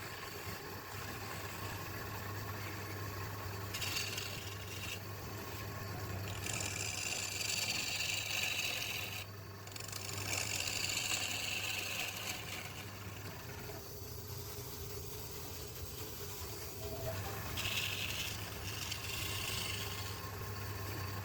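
Wood lathe running with a steady motor hum while a turning tool cuts the spinning wood in several passes, each lasting a few seconds.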